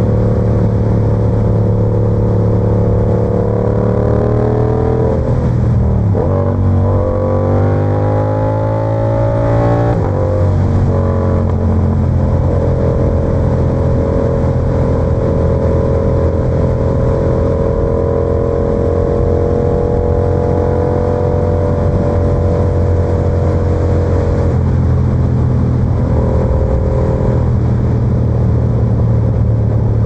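Yamaha YZF-R7's parallel-twin engine and exhaust under way. The revs climb and drop through gear changes in the first third, with breaks about six and ten seconds in. It then settles to a steady cruise, with a small change in pitch near the end.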